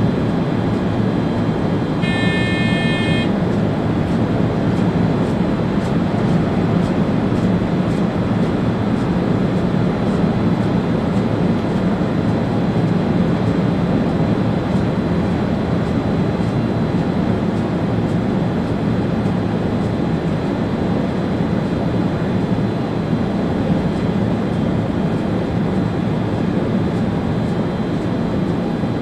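Steady running noise in the cab of an ÖBB Railjet train travelling along the line: an even rumble of wheels, rails and traction. A short, steady high-pitched tone sounds about two seconds in.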